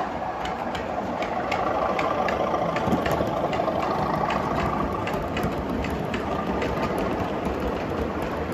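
Heljan O gauge Class 37 model diesel locomotive hauling MGR hopper wagons, giving a steady engine-like running sound. Regular sharp clicks, about two to three a second, come from the wheels running over the track.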